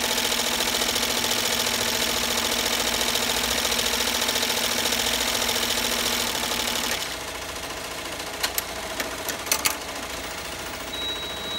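Multi-needle embroidery machine stitching at a fast steady rhythm, sewing down the edge of a twill applique. About seven seconds in the stitching stops, followed by a few sharp clicks and a short high beep near the end.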